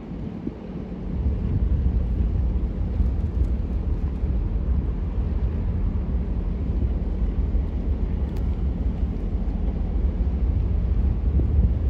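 Deep, steady rumble of the lake freighter Lee A. Tregurtha passing close by as her hull pushes through the canal ice. It swells up over the first second and then holds even.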